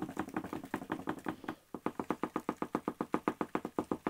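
A cardboard egg crate shaken hard over a plastic tub, knocking rapidly at about ten knocks a second to shake Turkestan (red runner) cockroaches off it. The knocking pauses briefly about one and a half seconds in, then stops near the end.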